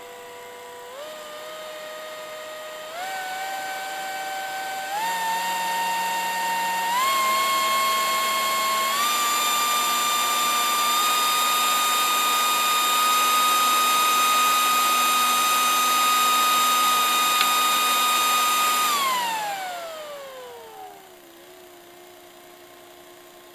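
DPS-1200FB server power supply's cooling fan, under Arduino control, speeding up in distinct steps about every two seconds as the load rises, its whine jumping up in pitch and getting louder at each step: the fan speed is updated only every two seconds. It holds at high speed, then spins down smoothly in a falling whine about nineteen seconds in and settles to a low hum.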